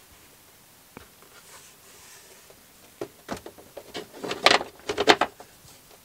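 A panel being handled and fitted back into its opening: a run of knocks and scraping clatter starting about three seconds in, loudest around four and a half to five seconds in.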